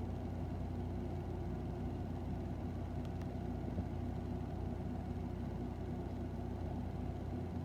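Steady low mechanical hum with a few constant tones, like a motor or engine running.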